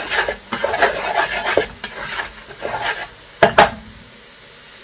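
Spatula stirring and scraping masala paste through hot oil in a non-stick pot, in quick irregular strokes over a soft sizzle as the spices fry on low heat. Two louder strokes come about three and a half seconds in, after which only the quiet sizzle remains.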